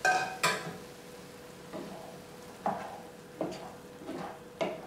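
A metal ladle clinks twice against a non-stick pan, ringing briefly, as broth goes into arborio rice. Then a wooden spoon stirs the rice, giving short scraping strokes about once a second.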